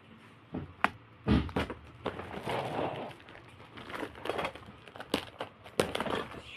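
Packaging crinkling and rustling as it is handled, with scattered sharp clicks and knocks, the loudest about a second in and again near the end.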